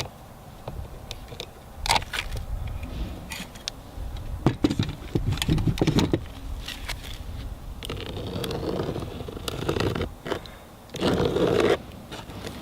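Scattered clicks, knocks and scraping of a clear roof sealant being applied to a surface under water, with longer scraping stretches near the end.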